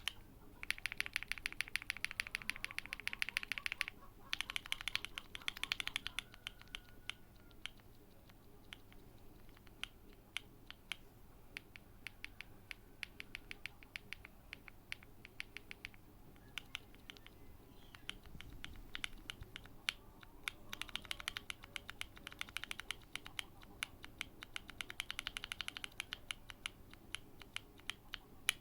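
Typing on a gasket-mounted TKD Cycle7 mechanical keyboard with factory-lubed WS Light Tactile switches and a PP plate. Fast runs of keystrokes slow to separate single key presses for a stretch in the middle, then pick up to fast typing again.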